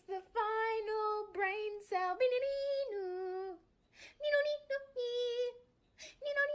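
A high voice singing a simple tune without accompaniment: held notes that step up and down, with two short breaks partway through.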